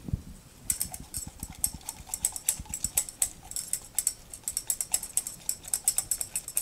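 Metal utensil rapidly stirring the honey-mustard sauce in a small stainless-steel cup, clinking against its sides in quick, even strokes, several a second, starting under a second in.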